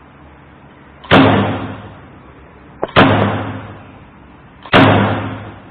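Electric saddle stapler firing three times, about two seconds apart, driving staples through folded paper: each stroke is a loud, sharp clack that fades out over about a second.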